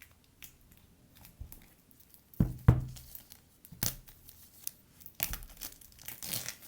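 iPad box packaging being torn open and crinkled by hand. A few sharp knocks come about two and a half to four seconds in, then crinkling near the end.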